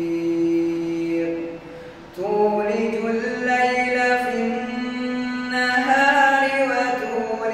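A man's voice chanting Quran recitation in a slow melodic style (tartil), drawing out long held notes. There is a short pause for breath about two seconds in, then the chant carries on.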